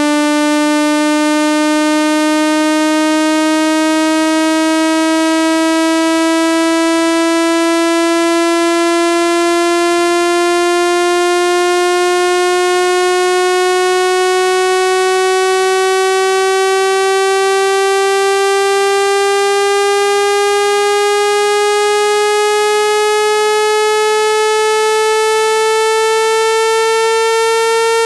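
Speaker-cleaner test tone: one steady electronic tone that glides slowly upward in pitch, played through a phone speaker to shake out water and dust.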